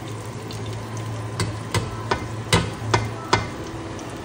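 A metal spoon knocking against a cooking pot about six times, roughly two or three a second, over a steady low hum.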